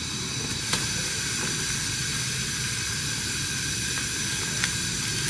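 Pot of water with chicken gizzards boiling hard on a gas burner: a steady bubbling hiss, with a few light clicks.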